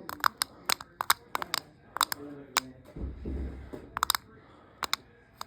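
Plastic buttons on a toy RC remote control clicking repeatedly, in irregular single and double presses, as the toy fails to respond. A short low rumble about three seconds in.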